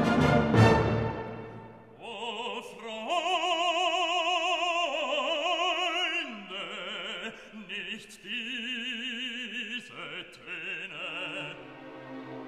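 Classical music: a loud orchestral chord fades out over the first two seconds. A solo operatic voice follows, holding long notes with strong vibrato, and gives way to softer accompaniment near the end.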